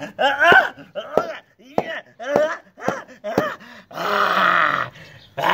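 A man's voice making a string of short groans and grunts, with a longer hoarse cry about four seconds in.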